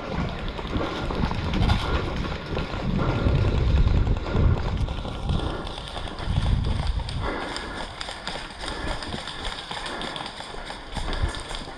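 Irregular low rumbling of wind and movement on the camera microphone, in surges, with scattered faint clicks and snaps.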